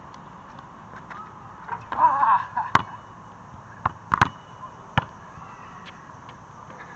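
A brief yell from a man going up for a dunk, then about five sharp knocks over the next two seconds as the basketball hits the hoop and bounces on the concrete court.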